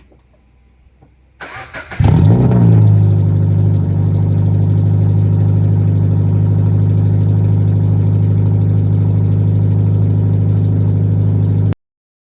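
Scion FR-S 2.0-litre flat-four boxer engine cranked over and started with its catback exhaust removed, running almost straight-piped. It catches after about half a second of cranking, flares briefly, then settles into a loud, steady, deep idle.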